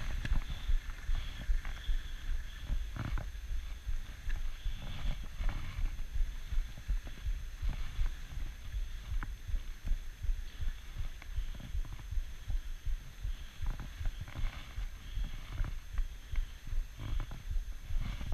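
Dog sled running over a packed, groomed snow trail: a steady low rumble of the runners, with an uneven run of knocks and thumps as the sled rides over bumps.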